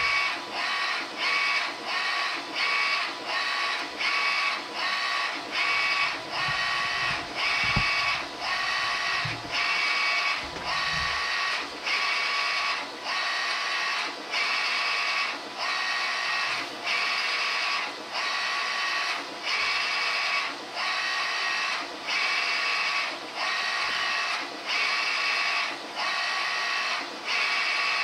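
Garment inkjet printer printing onto a T-shirt: the print-head carriage makes pass after pass, each a short motor whine with a brief pause between, about one a second, over a steady hum.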